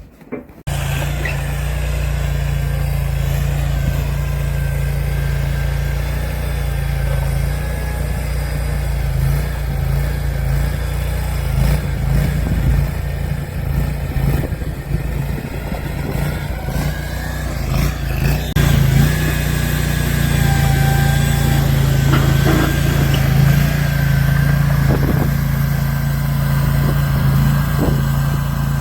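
Mini skid steer's small engine running steadily, with a few knocks.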